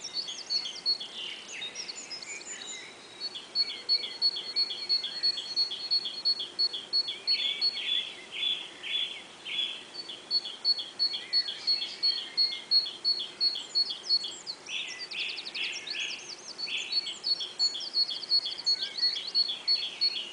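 Several songbirds singing, with one bird repeating a short high two-part note about four times a second for long runs while others add varied chirps and trills over it.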